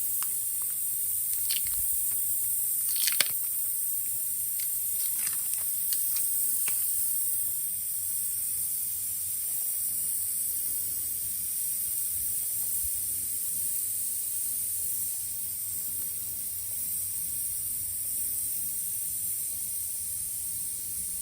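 Steady high-pitched hiss, with a few faint, short clicks in the first several seconds as a sticky tire plug is handled and threaded through the eye of a plug-kit insertion needle.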